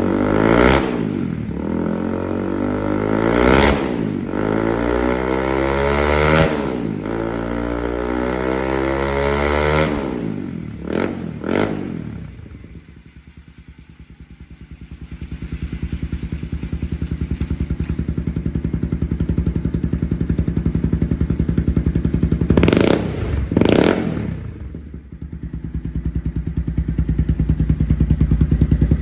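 The single-cylinder four-stroke engine of a low-mileage (2,589-mile) 2012 Honda CBR250R, running on the bike. It is revved up and down repeatedly for about ten seconds, then drops to a quieter idle. It then builds back to a steady run, with two quick throttle blips a little over twenty seconds in.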